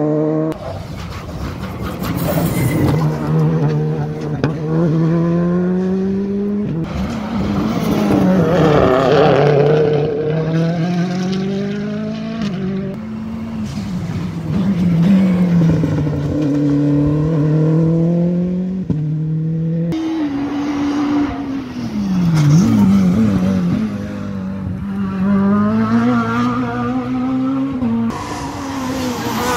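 Rally cars at full throttle on a tarmac special stage. The engine note climbs in pitch and drops back at each gearchange, several times over, as cars pass one after another.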